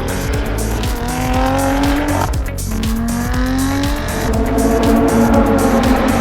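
Lotus Elise Cup 250's supercharged four-cylinder engine under hard acceleration on track. The revs climb and fall sharply at upshifts about two and four seconds in, then hold high in the next gear.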